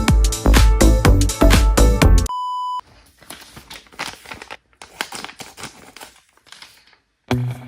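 Electronic background music with a steady beat that cuts off about two seconds in, followed by a short steady beep. Then several seconds of faint, irregular crackling and rustling before the music starts again near the end.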